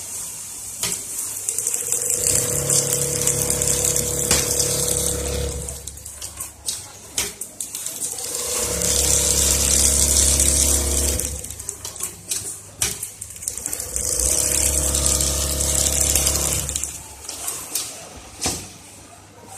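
Automatic shoe-upper sewing machine running stitch cycles. It runs three times for about three seconds each with a steady motor hum and a high hiss. Sharp clicks and knocks come in the pauses between runs.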